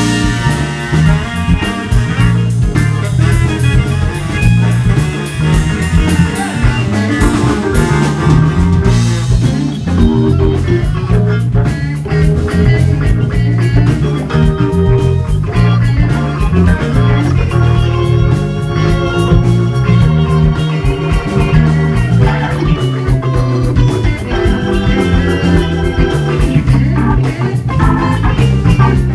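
Live jazz-blues band playing: Hammond A-100 organ with electric bass and drum kit, over a steady beat.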